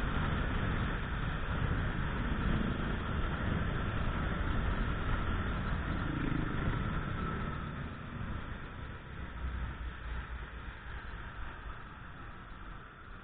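Yamaha Jupiter Z CW motorcycle underway in traffic: wind rushing over the microphone with the engine and road noise beneath it. The noise drops after about eight seconds as the bike slows.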